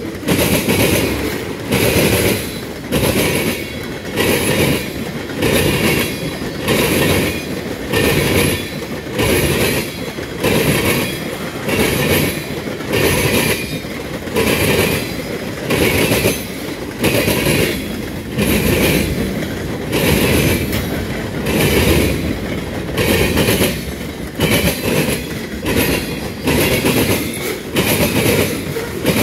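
Freight train cars (boxcars and tank cars) rolling past close by, their wheels clattering in a steady beat about once a second.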